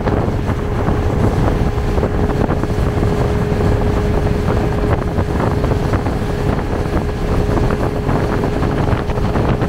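Fishing boat running at speed on open water: a steady motor hum under rushing water and heavy wind buffeting the microphone.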